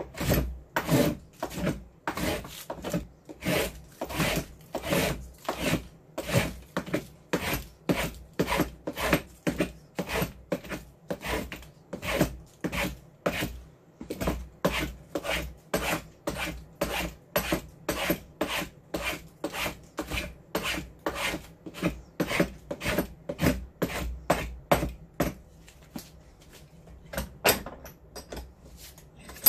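Wooden spokeshave shaving willow off the blade of a cricket bat to reduce its weight, in quick repeated scraping strokes, about two a second, with a short pause near the end.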